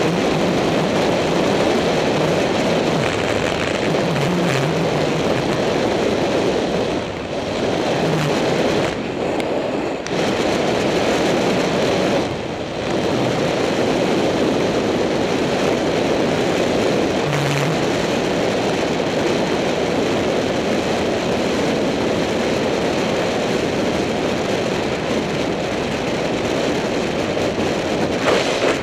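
Wind rushing over the microphone of a helmet-mounted camera on a bicycle at about 39 mph, a loud steady rush that dips briefly a few times.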